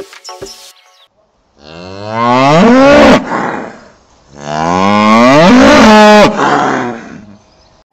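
Cow mooing twice: two long, loud calls, each rising in pitch and then holding.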